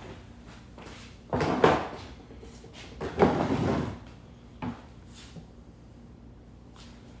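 Handling noise from chainsaw parts being moved about during assembly: a burst of clattering about a second in, a longer one about three seconds in, then a single short knock.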